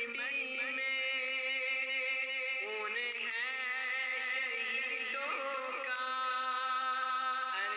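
A man singing in a chanting style, holding long notes that step from pitch to pitch with small melodic ornaments.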